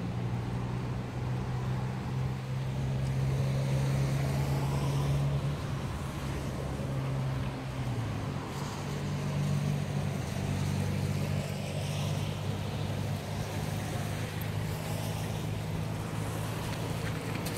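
Diesel locomotive engines of an approaching freight train running with a steady low hum, the pitch shifting to a new note about eight seconds in.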